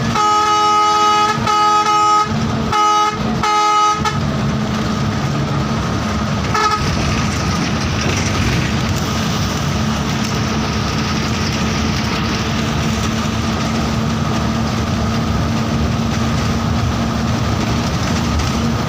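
Bus horn sounding several blasts of a multi-tone chord over the first four seconds, and one short toot about seven seconds in. Then the bus engine runs on steadily under road noise.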